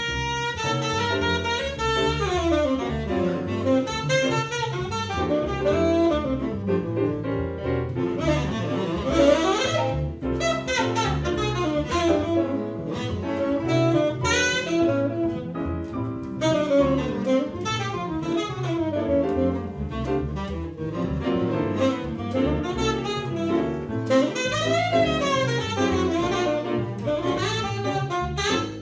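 Tenor saxophone soloing in a live jazz tune, playing fast runs that climb and fall, with piano and double bass accompanying.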